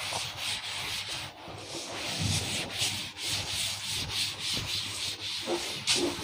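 A cloth wiping chalk writing off a blackboard, a rubbing hiss in repeated back-and-forth strokes, about two or three a second.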